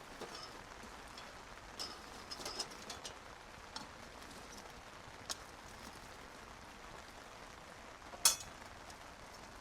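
Steady rain falling, with a few short high bird chirps about two seconds in and a single sharp tap near the end.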